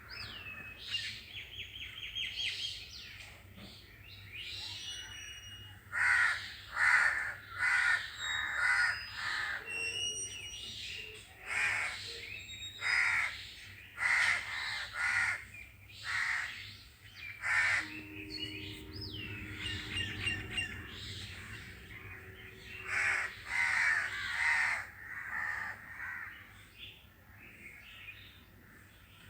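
Crows cawing repeatedly in runs of harsh calls, with smaller birds chirping and whistling thin high notes in the background, mostly in the first half.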